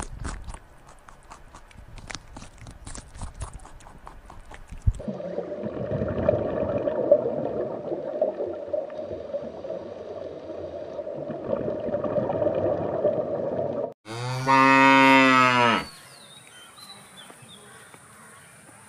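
A Holstein calf mooing once, one long loud moo about fourteen seconds in that lasts about two seconds. Before it come scattered clicks and rustling for a few seconds, then a steady rushing noise.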